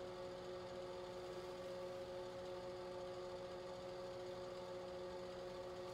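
A faint, steady hum made of two constant tones over a low hiss.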